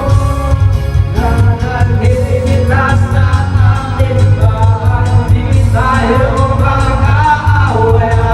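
A song playing: a sung vocal melody over a steady drum beat and heavy bass.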